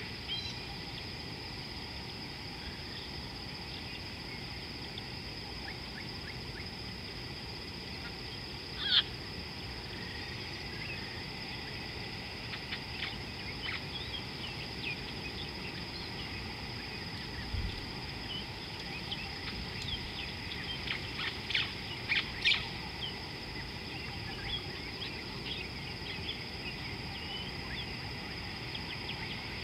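Wild birds calling in short chirps, busier in the second half, with one louder call about nine seconds in, over a steady outdoor hiss and a constant high whine.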